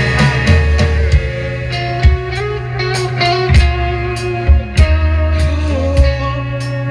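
Rock band playing an instrumental passage between sung lines: a guitar melody over a sustained bass line, with drum hits every half second or so.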